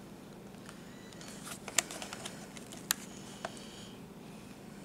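Handling noise from a plastic VHS-C camcorder body: scattered light clicks and taps, with two louder sharp clicks about a second apart near the middle.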